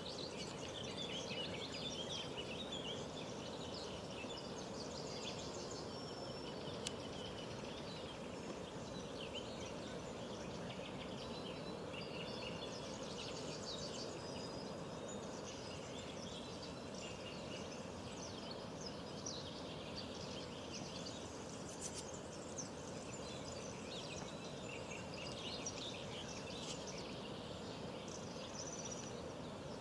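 Several small birds singing and chirping continuously, busy and high-pitched, over a steady low background noise.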